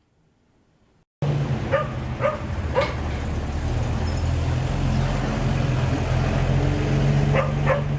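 After about a second of near silence, a vehicle engine starts to be heard, running steadily. A dog barks three times about two to three seconds in and twice more near the end.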